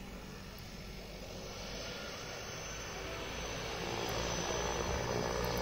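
Small turboprop airplane running its engines at take-off power on its take-off roll, the engine and propeller noise growing steadily louder as it approaches.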